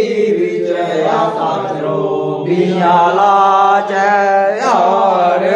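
Punjabi devotional aarti hymn to the goddess being sung, the voice holding long notes that bend in pitch between lines, with a quick upward slide near the end.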